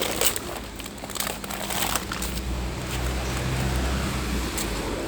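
Rustling and handling noise on a phone microphone, with a low vehicle engine rumble that swells about halfway through and fades near the end.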